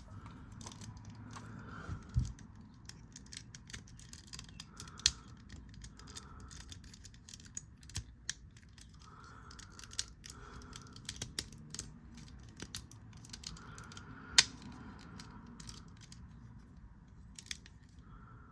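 Plastic Transformers action figure being handled and transformed: scattered clicks and taps of plastic parts knocking and snapping into place, with a few sharper snaps about 2, 5 and 14 seconds in.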